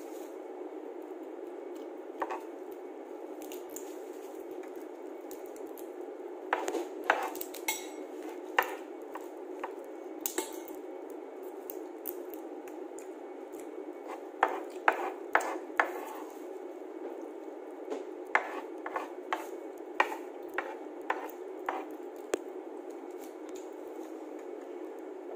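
Shrimp and crab shells cracking and being pulled apart by hand, sharp clicks in clusters, over a steady low hum.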